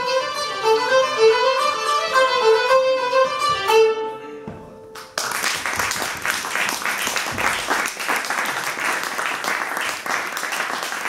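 Violin and plucked zither duo playing; the piece ends about four seconds in on a last held note that fades out. About a second later applause breaks out and carries on.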